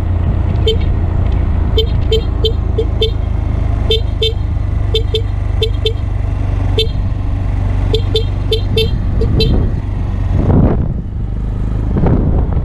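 A motorcycle horn tooted in about twenty short beeps, in quick bunches of two to five, over the steady drone of a Honda Grom's small single-cylinder engine while riding.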